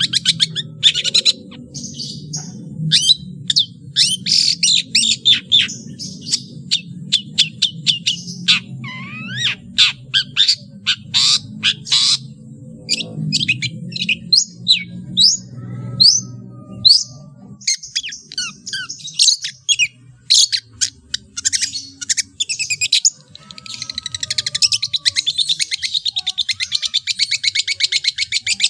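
Long-tailed shrike (cendet) singing a rapid, varied stream of sharp chirps and whistles, imitating the calls of other birds. From about two-thirds of the way in it runs into a fast, unbroken trill. A low background hum runs under the first half and stops partway through.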